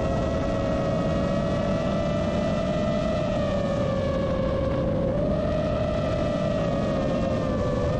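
Motors and propellers of a GEPRC Vapor D6 six-inch FPV quadcopter whining steadily in flight, with a rushing wind noise underneath. The pitch sags slowly, jumps back up about five seconds in, then sags again near the end.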